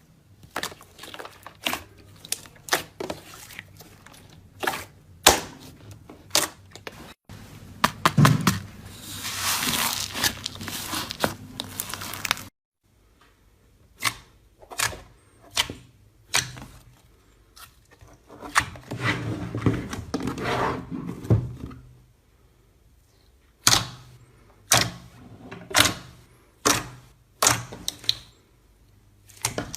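Slime being played with by hand: a run of sharp pops and clicks as it is poked and squeezed, with two longer stretches of crackling noise about ten and twenty seconds in.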